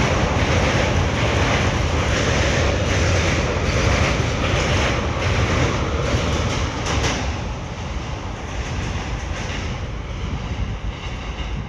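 Container freight train running past on a steel girder bridge: a loud rumble with the clatter of wheels over the rail joints. It drops off about seven seconds in, as the last wagon passes and the train moves away.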